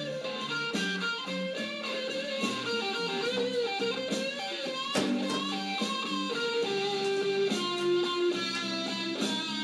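Live electric blues band playing a slow blues: an electric guitar lead with bent, wavering notes over bass guitar and drums, with a sharp drum hit about five seconds in.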